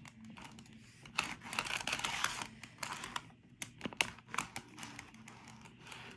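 Small plastic clicks and scraping from N-scale model train cars and their couplers being handled by hand, with one sharper click about four seconds in.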